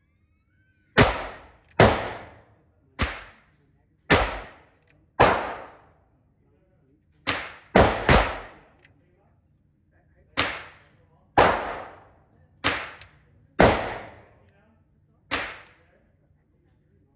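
A Colt .22 LR revolver fired single shots in a slow string, about a dozen sharp cracks roughly a second apart, each ringing out in the echo of an indoor range.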